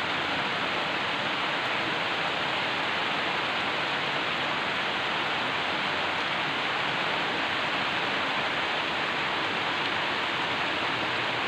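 Torrential rain pouring down steadily onto plants and potted soil, an even hiss with no let-up.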